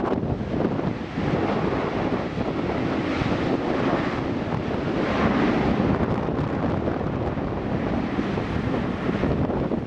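Wind buffeting the microphone: a steady, rumbling rush that swells a little in the middle.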